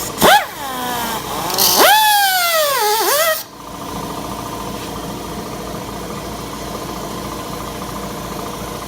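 High-speed rotary cutting tool trimming motorcycle body plastic. It gives a short whine that shoots up and drops, then a longer run of about a second and a half whose whine climbs and then sinks as it bites. It cuts off suddenly about three and a half seconds in, and a steady low hum goes on after it.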